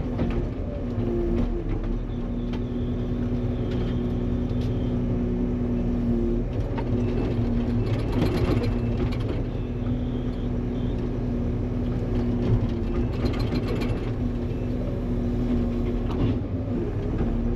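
Engine of a log-grappling machine running steadily while moving logs, with two brief louder rattling stretches of noise about eight and thirteen seconds in.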